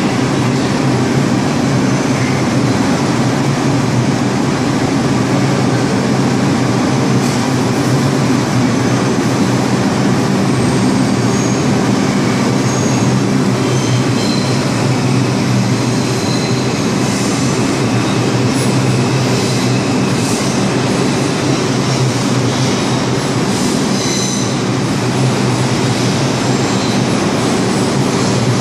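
R142 subway train starting up and pulling out of the station, its cars rolling steadily past with a continuous rumble. Thin high wheel squeals come and go in the second half.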